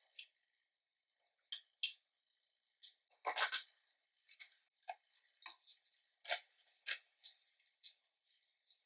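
Slime being squished and kneaded by hand, giving irregular sticky clicks and small pops, with a pause near the start and a louder cluster of crackles about three and a half seconds in.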